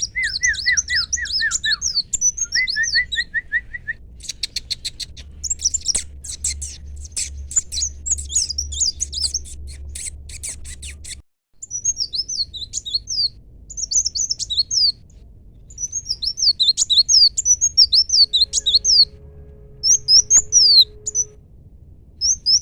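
A kolibri wulung, a small sunbird kept as a songbird, singing: long runs of quick, high, falling chirps, with lower notes at the start and a buzzy, fast-stuttering stretch partway through.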